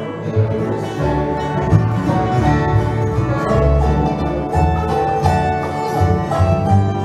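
Bluegrass band playing an instrumental passage: fiddle, acoustic guitar and mandolin over a steady upright bass line.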